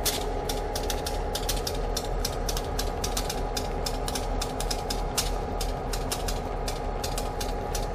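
Diesel railway locomotive running close by: a steady drone with many sharp clicks, several a second.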